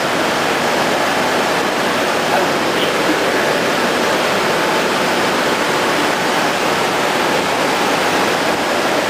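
Steady, unbroken rushing of running water, as in a used offset plate reprocessing machine washing the aluminium plates.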